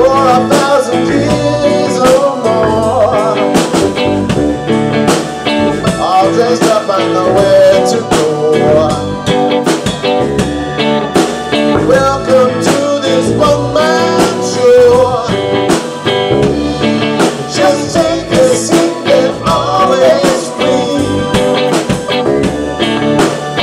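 Live band playing a song: strummed hollow-body electric guitar over a steady drum beat, with a man singing.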